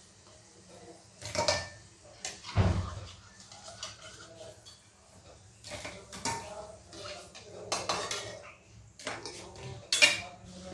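Metal spoon clinking and scraping against a metal kadhai and plate as fried dumplings are lifted out of hot ghee: scattered sharp clatters, the loudest about one and a half and two and a half seconds in, and another near the end.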